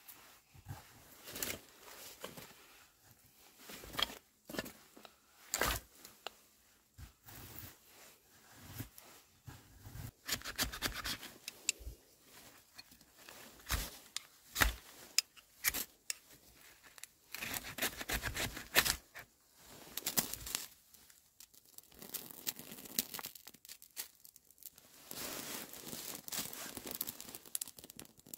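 A large fixed-blade knife splitting dry kindling and shaving birch bark: uneven knocks of the blade driven into the wood, then bursts of scraping and tearing as curls are carved off. Near the end there is a steadier hiss as the birch bark catches light.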